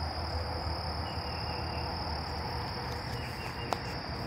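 An insect's steady, high-pitched trill, unbroken throughout, over a low rumble, with one sharp click near the end.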